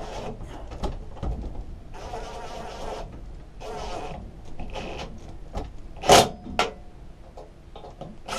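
Cordless DeWalt impact driver running the carburettor mounting bolts in, in several short bursts of whirring. About six seconds in come two louder, sharp bursts as a bolt pulls tight.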